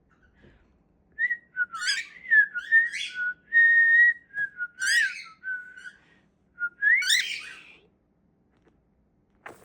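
Pet bird whistling: a string of short whistled notes and upward-swooping calls, some of them rough and raspy, starting about a second in and stopping near the end.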